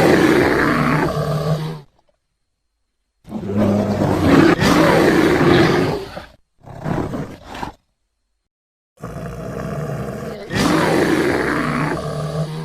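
American black bear growling roars, played as separate cut-together clips: a roar of about two seconds at the start, a longer one of about three seconds, a short one, and a long one near the end, with dead silence between them.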